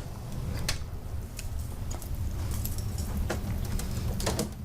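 Air conditioning unit running with a steady low electrical-mechanical hum. The unit has a dead short to ground and is expected not to last before the breaker trips. Scattered light metallic clicks and rattles sound over the hum.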